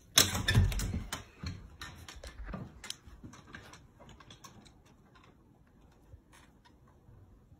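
A door handle rattling and a door being opened, a burst of clicks and knocks, followed by sparse faint clicks that die away.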